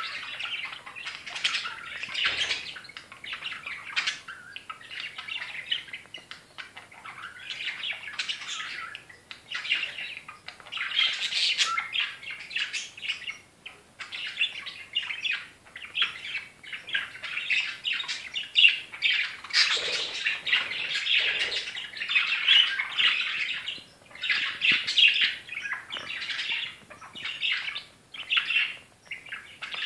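Budgerigars chattering and warbling in a near-continuous stream, with wing fluttering and rustling as one bird bathes in wet cat grass.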